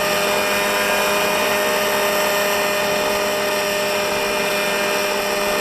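Gasoline-powered radio-controlled model helicopter hovering, its engine and rotors giving a steady, unchanging whine at a constant pitch.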